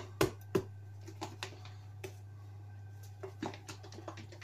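Kitchen handling noises: two sharp knocks in the first second, then scattered light clicks and taps, over a steady low hum.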